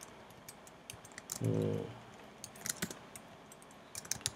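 Keystrokes on a computer keyboard, in scattered short clusters of clicks, as a line of code is deleted and retyped. A brief low vocal sound comes about one and a half seconds in.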